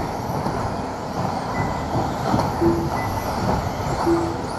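Electric two-wheel-drive RC buggies racing on an indoor carpet track: a steady din of motors and tyres echoing in a large hall, with a short beep about every second and a half.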